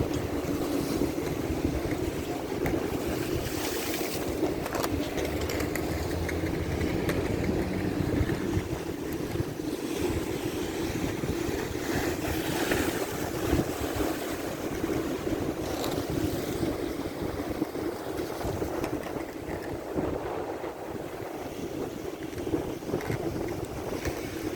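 Ocean surf with wind on the microphone: a steady rushing of water, swelling brighter as waves break about four seconds in and again around twelve to thirteen seconds.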